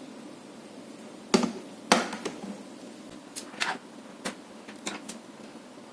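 A handful of sharp, light clicks and taps at uneven intervals, about seven in all, with the loudest two close together early on. They come from hands handling small plastic parts of the cable tester and patch cable.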